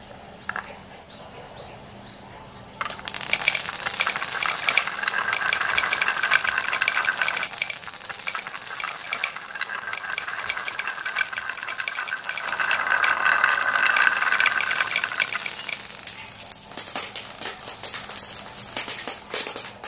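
Dozens of glass marbles running down a wooden zigzag marble slope in a dense, continuous clicking clatter, knocking against each other and the wood and spilling onto a tile floor. A few single clicks come first. The clatter starts about three seconds in and thins to scattered clicks of marbles rolling and settling on the tiles near the end.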